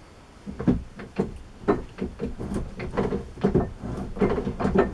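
Keyway being broached inside a steel change-gear sleeve on a lathe: a string of uneven metal clunks and scraping strokes, about two a second, starting about half a second in.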